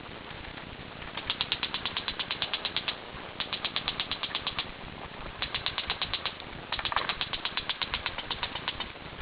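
Airsoft electric gun firing full-auto in four bursts of rapid, evenly spaced shots, about ten a second, the last burst the longest.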